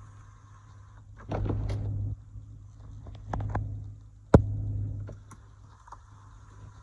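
Supercharged 6.2-litre LT4 V8 of a 2017 Cadillac CTS-V idling, a steady low hum heard from inside the cabin. Over it come a few short rustling and clunking noises and one sharp click a little over four seconds in.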